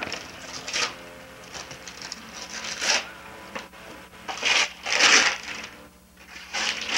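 Wrapping paper being torn and rustled off a small gift, in several short ripping bursts a second or two apart.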